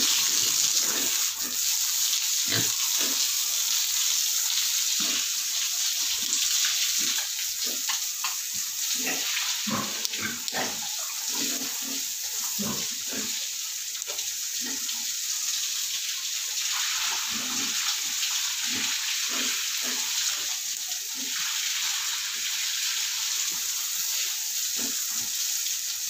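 Water from a hose spraying onto a wet concrete pig-pen floor, a steady hiss throughout, with pigs grunting now and then.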